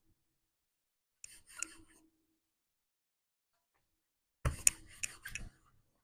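Rolling pin rolling out a ball of poori dough on a board: two short spells of rubbing with light clicks, the second louder.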